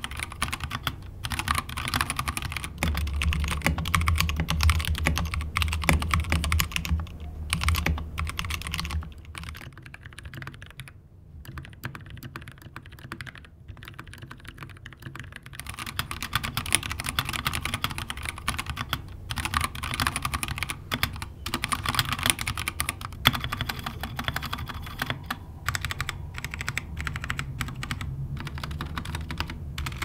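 Typing on mechanical keyboards: a Drop ENTR tenkeyless with Halo True tactile switches, and for part of the time a second keyboard with lubed tactile switches. The keystrokes are heaviest, with a low thud under the clicks, in the first third and quieter for a stretch in the middle.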